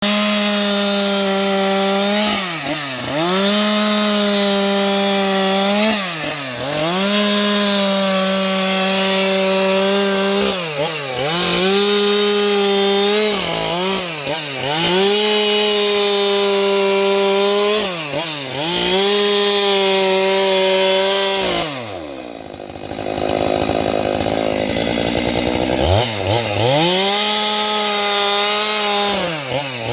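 Stihl MS 462 two-stroke chainsaw running at full throttle while sawing boards from a log, its pitch dipping briefly every few seconds. About 22 seconds in it drops to idle for roughly four seconds, then revs back up to full speed.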